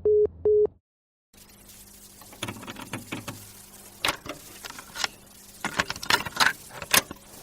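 Two short electronic phone beeps, the tone after a call ends, then a brief silence. After that comes a stretch of faint rustling and handling noise with irregular clicks and taps, the loudest of them near the end.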